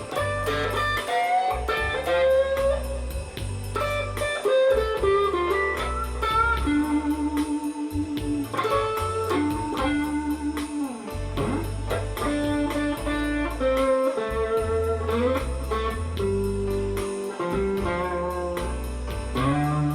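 Electric guitar playing improvised blues lead lines with string bends and vibrato on held notes, over a backing track of bass and drums.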